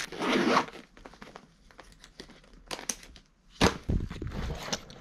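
Backpack zipper pulled once, briefly, just after the start, followed by small clicks and rustles of gear being handled. A sharp thump about three and a half seconds in, then more rustling.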